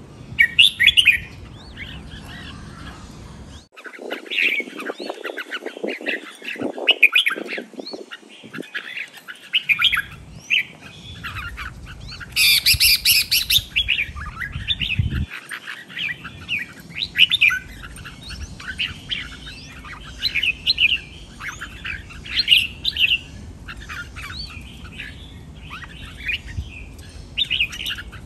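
Caged red-whiskered bulbuls singing: a continuous run of short, bright chirping phrases, with one louder, harsher burst about twelve seconds in.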